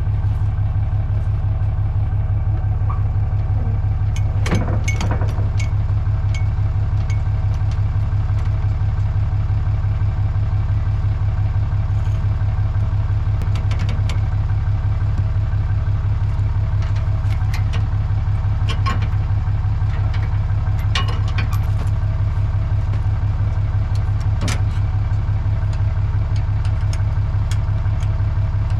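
An engine idling steadily with an even low drone, with a few light clicks and rattles over it.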